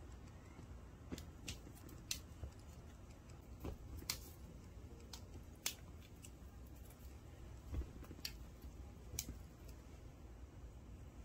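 Scattered light clicks and taps, irregularly spaced about a second apart, from a cat batting and biting at a dangling string toy, over faint room noise.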